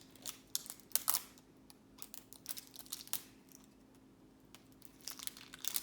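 Scattered small clicks and taps of hands handling small plastic toy pieces, in short clusters, over a faint steady hum.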